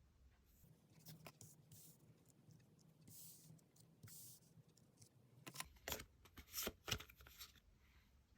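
Tarot cards being handled: soft sliding swishes and light taps and clicks, the taps loudest and most frequent in the second half.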